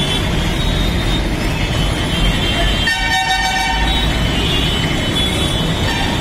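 Steady traffic and street noise, with a horn sounding once for about a second, roughly three seconds in.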